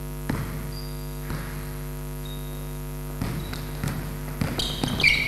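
Steady electrical mains hum, with a basketball bouncing on the gym floor twice early on and a run of dribbles in the last two seconds, joined by short high sneaker squeaks near the end.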